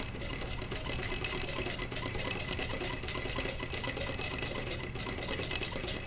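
All-metal Singer Model 20 toy sewing machine, hand-cranked, sewing a chain stitch: its needle and rotating hook make a rapid, steady clatter of ticks.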